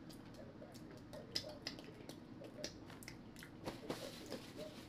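Close-up eating sounds: wet mouth clicks and smacks while chewing, many short ticks in a row. About four seconds in, a paper napkin rustles.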